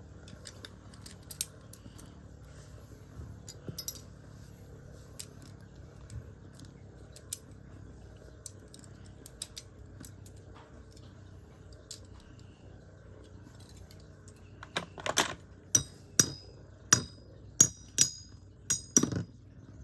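Metal Fight Beyblade tops spinning in a stadium, with faint scattered ticks. Near the end comes a run of about eight sharp metallic clinks as the tops knock together and against the stadium while the battle runs down.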